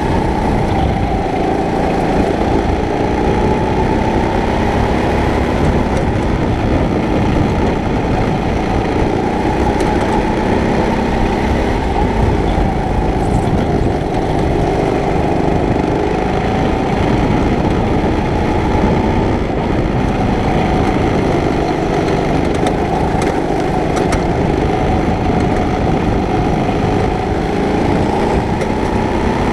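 Sodi kart's engine running hard under racing, heard from the driver's seat, its note rising and falling a little through the corners.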